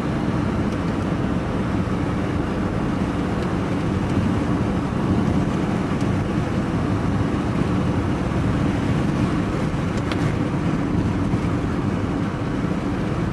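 Steady engine and tyre-on-road noise heard from inside a vehicle's cab, cruising at a constant speed. It is an even, low drone that does not rise or fall.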